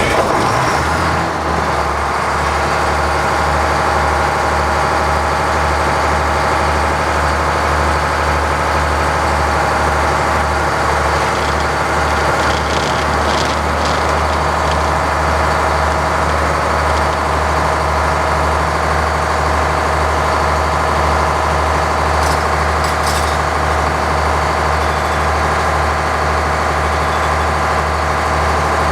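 Sawmill's power-unit engine just started and running steadily with an even low pulse. It was started with the circular saw blade in gear, so the blade is turning with it.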